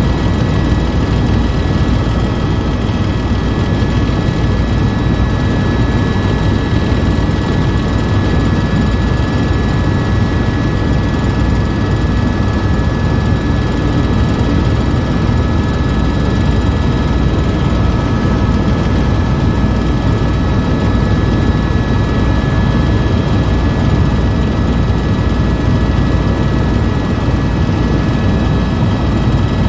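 Helicopter engine and rotor noise heard from inside the cabin in flight: a steady, loud low rumble with several constant high-pitched whine tones over it.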